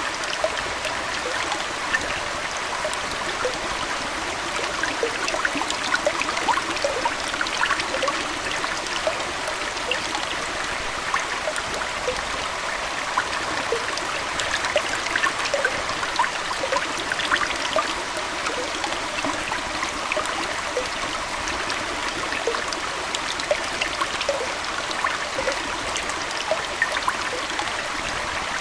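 Aquarium water flowing and trickling steadily, with many small bubbly plinks scattered through it.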